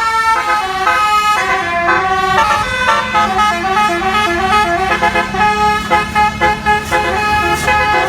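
A bus's telolet basuri horn playing a quick melody of stepping notes. There is a faster run of short notes in the middle. A low engine rumble sits beneath it.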